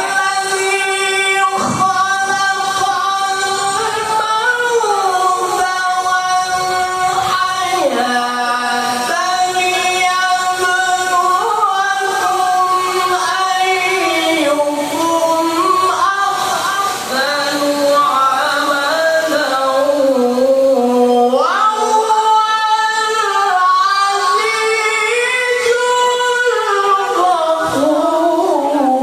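A Quran reciter's solo voice chanting in melodic tilawah style: long held notes that slide and ornament up and down, with a short breath about a third of the way in and another about three quarters through.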